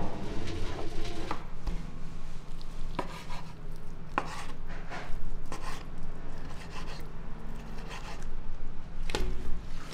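Knife chopping food on a cutting board: separate chops spaced irregularly a second or more apart, over a faint low steady hum.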